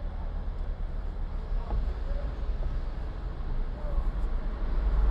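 Street sound from a moving car: a steady low rumble of engine and road noise, with faint voices in the distance.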